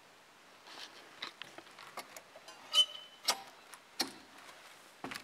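Metal lever door handle being pressed and tried on a locked door: a few sharp clicks, one with a brief squeak nearly three seconds in, amid quieter scuffs.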